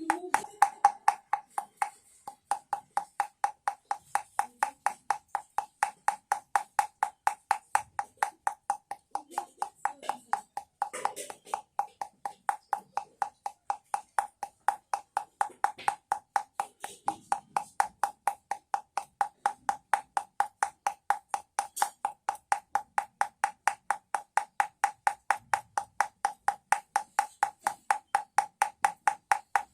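A baby rattle sounding in a steady, very even rhythm of about four short clacks a second. Each clack has a ringing pitched tone.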